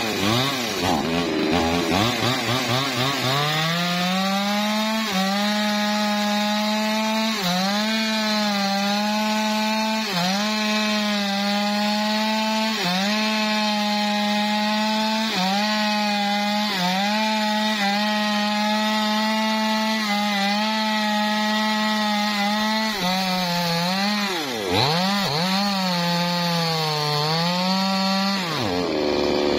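Two-stroke chainsaw cutting through a felled teak log at high revs, its engine note dipping briefly every couple of seconds as the chain bites into the wood. About 25 seconds in the revs drop sharply and climb again, and at the very end they fall away.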